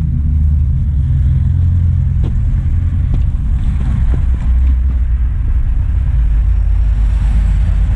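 A steady, loud low rumble, with a few faint taps in the middle, likely footsteps on concrete steps.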